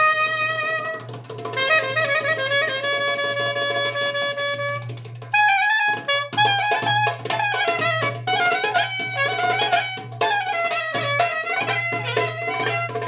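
Live Caucasian wedding dance music from a band: a wind instrument plays a fast, ornamented melody over a steady low drone and drums. It breaks off briefly about five seconds in, then resumes with busier drumming.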